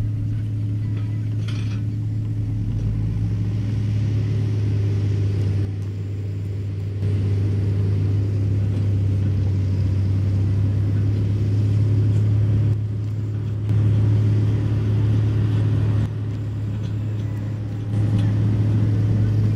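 John Deere 770B motor grader's diesel engine running steadily under load while the machine grades soil, a deep even drone. The level jumps abruptly up or down several times.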